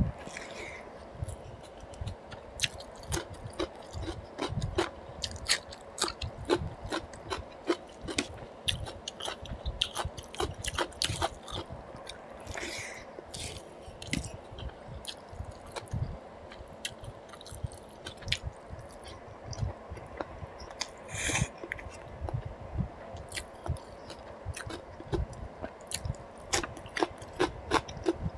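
Close-miked mouth sounds of a man eating rice and mutton curry by hand: wet chewing and lip-smacking, with many small irregular clicks.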